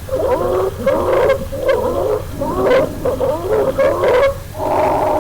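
A young child with croup giving repeated hoarse, barking coughs with strained breathing, the cough typical of croup. There are about seven short rough bursts, and a steadier rasping sound starts near the end.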